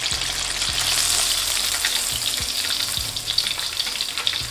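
Flour-coated chicken fillet deep-frying in hot oil in a wok: a steady crackling sizzle.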